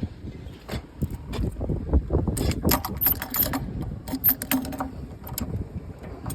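Metal clicks and clinks of tools and fittings being handled while working on an old electric water heater, over a low rumbling handling noise. The clinks come thickest in the middle.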